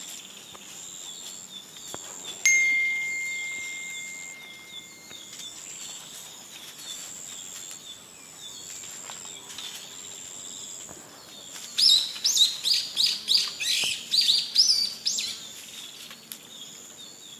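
Birds calling in the open air over a steady high background. About 12 seconds in comes a loud run of a dozen or so quick chirps. Earlier, about two and a half seconds in, a single clear ringing tone starts suddenly and fades over a few seconds.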